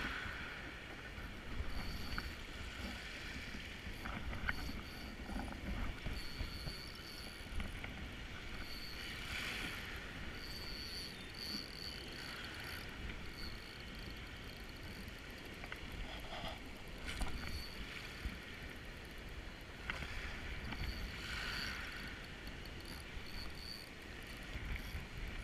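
Wind rumbling on a furry microphone windscreen over the wash of river-mouth water and surf, with a faint high whine coming and going throughout.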